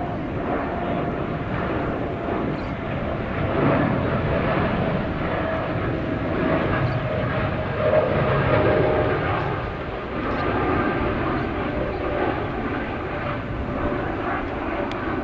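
Jet airliner engines running: a continuous rumble with a steady whine on top, swelling a little and easing again.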